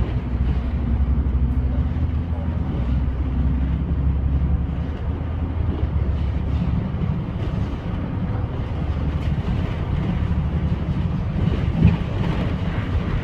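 Double-decker bus engine and road noise heard inside the moving bus, a steady low drone whose engine note eases off about seven seconds in.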